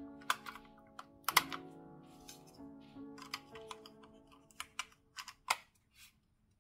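Sharp plastic clicks and taps as a Razer Basilisk X Hyperspeed wireless mouse is handled and pressed, the loudest about a second and a half in. Background music plays under the first four seconds, then fades out.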